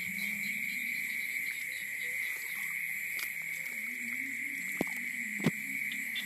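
Night insect chorus, crickets, giving a steady high-pitched drone, with two sharp knocks close together near the end.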